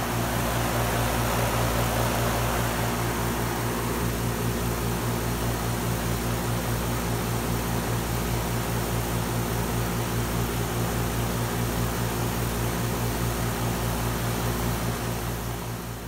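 Tempstar 4-ton heat pump outdoor unit running in heat mode: a steady compressor hum under the rush of the condenser fan, fading out near the end.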